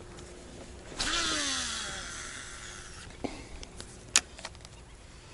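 Fishing reel paying out line on a cast: a sudden whirring whine with hiss that drops in pitch and fades over about two seconds, followed by two sharp clicks.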